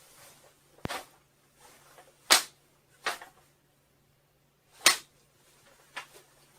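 Prop katana swung in short, sharp swishes, five in all, the second and fourth much louder than the rest.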